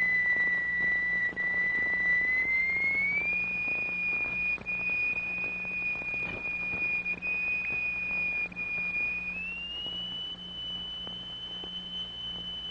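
Steady, whistle-like pure tone from the oscillator that sets a cymatics plate vibrating into standing-wave figures. It steps up to a higher note about three seconds in and again about three quarters of the way through. A faint low mains hum runs underneath.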